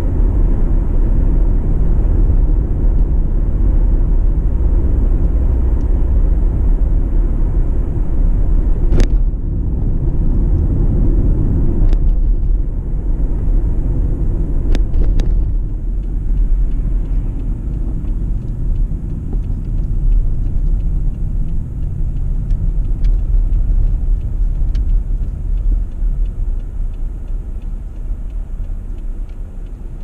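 A car driving along a road: a steady low rumble of engine and tyre noise, with a few sharp knocks between about nine and fifteen seconds in, fading off near the end.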